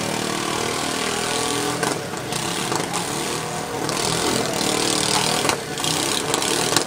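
Riding lawn mower engines running together, with their pitch rising and falling a little as they rev.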